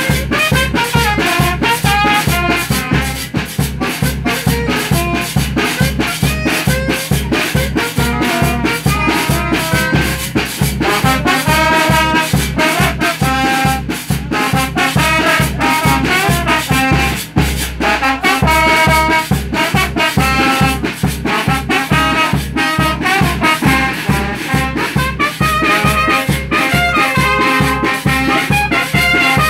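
A small live brass band (bandita) playing a ritmo tropical dance tune: trumpets and trombones carry the melody over drums keeping a steady beat.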